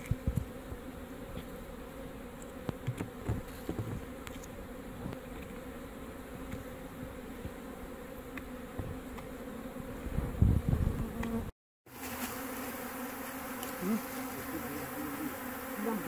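Honey bees buzzing around an opened hive, a steady droning hum. Scattered clicks and a few louder knocks from handling the frames come through, and the sound drops out completely for a moment about three quarters of the way through.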